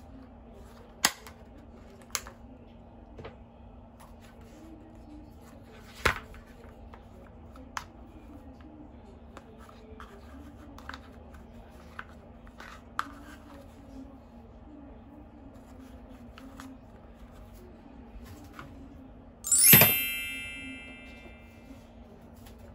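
A white plastic magnetic shelf being handled, giving a few scattered sharp clicks and taps. Near the end there is one loud clack that rings for about two seconds before fading. A faint low hum runs underneath.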